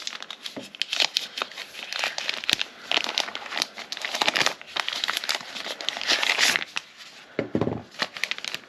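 Plastic packaging crinkling and rustling as it is handled and unwrapped, a steady run of crackles throughout.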